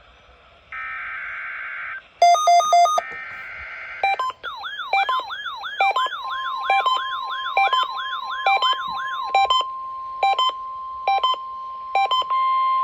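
NOAA Weather Radio test alert tones: two buzzy bursts of digital SAME header data, then a steady 1050 Hz alert tone that starts about six seconds in. Alert receivers go off over the broadcast, with repeating electronic beeps and a fast warbling siren-like alarm that stops after about five seconds.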